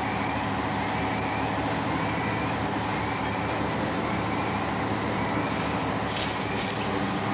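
Steady engine drone of a fire engine running its pump to supply hose lines at a working fire, with a brief hiss about six seconds in.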